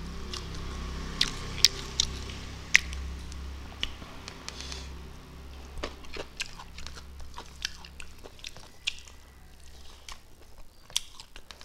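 Two people eating rice and meat close to a lapel microphone: chewing and lip-smacking with many sharp clicks, the loudest in the first three seconds, over a steady low hum.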